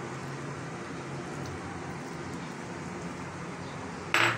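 Steady sizzling hiss from the biryani pan on the stove, with one short sharp knock near the end.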